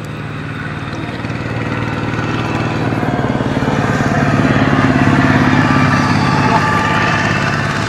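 Engine of a passing motor vehicle, growing louder to a peak about five seconds in, then easing off.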